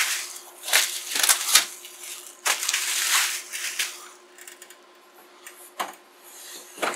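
Plastic bubble wrap crinkling and rustling as it is pulled off a heavy computer, with a few sharp knocks in the first few seconds. It then goes quieter, with a knock or two near the end as the unit is set down on a desk.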